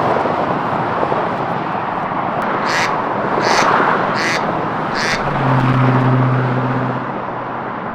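Outdoor street noise: a steady rush of passing traffic. Midway come four short, sharp, high-pitched sounds about two-thirds of a second apart, then a low steady hum for about two seconds.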